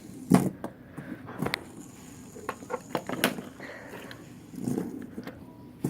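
Light irregular clicks and taps from a fidget spinner being handled in the hand, with a faint high whir in the middle as it turns.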